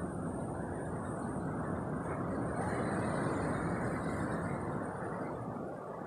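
Sea waves breaking on the beach: a steady rushing that swells a few seconds in and eases near the end.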